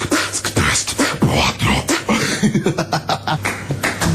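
A person beatboxing: quick percussive mouth clicks, pops and hisses mixed with short hummed notes, in an uneven rhythm.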